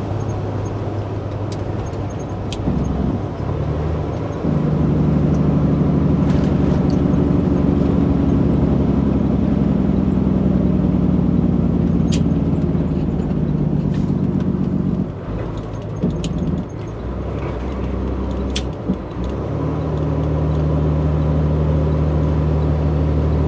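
Semi-truck's diesel engine droning inside the cab as it drives at highway speed. The drone grows louder and deeper about four seconds in, sags and wavers for a few seconds after about fifteen seconds, then settles steady again near the end, with a few faint clicks throughout.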